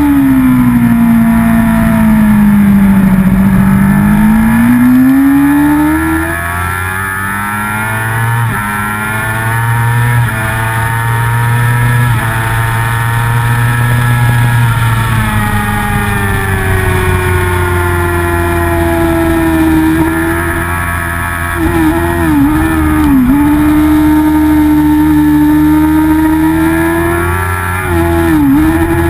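Racing motorcycle engine heard from onboard at full race pace, its note falling and climbing as the rider works the throttle through corners and down the straights. Twice, near the two-thirds mark and again near the end, the pitch dips and jumps sharply several times in quick succession, as when downshifting hard with throttle blips into a corner.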